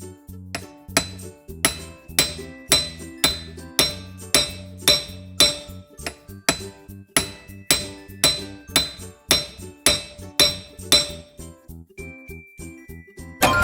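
Cartoon repair sound effect of metallic clinking strikes, about two a second, over a bouncy background music bass line; the strikes stop near the end, leaving a brief high tone.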